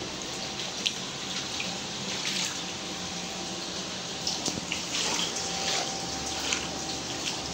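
Steady rush of running water inside a house during flooding, with scattered drips and splashes.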